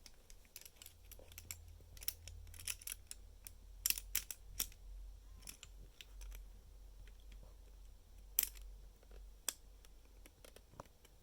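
Plastic Lego Technic pieces clicking and tapping as they are handled and pressed into place. Scattered sharp clicks, with louder snaps about four and eight seconds in.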